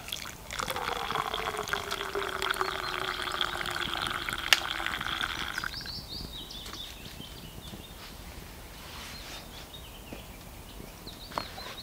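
Hot water poured from a metal cook pot into a cup: a steady splashing pour for about six seconds that stops suddenly. Birds call quietly afterwards.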